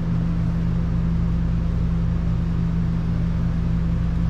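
Steady electric machine hum with an even low drone, unchanging throughout, such as a running shop fan or air-conditioning unit makes.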